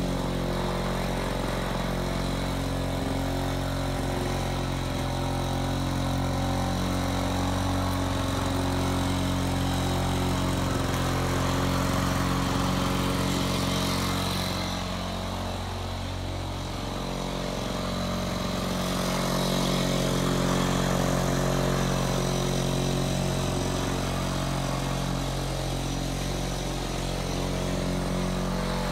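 International Harvester 3322 (Lawn-Boy built) two-stroke push mower engine running steadily at normal mowing speed while it is pushed across grass, its level dipping briefly about halfway through. It is running on a new primer bulb and a cleaned carburetor.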